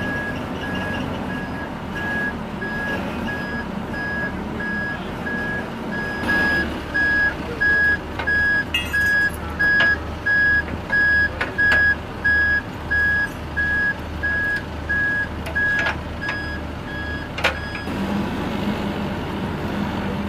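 A military tow vehicle's reversing alarm beeps steadily, about twice a second, over its running diesel engine as it backs up. A deeper pulsing sound runs alongside for much of the time, with a few sharp metallic knocks as the tow hitch is worked. The beeping stops near the end, leaving the engine running.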